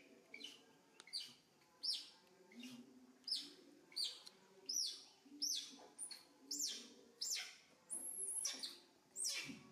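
A young macaque screaming: repeated short, high-pitched squeals, each falling in pitch, about one every two-thirds of a second, with a longer squeal near the end. The open-mouthed, teeth-bared calls are the monkey protesting at being held and handled.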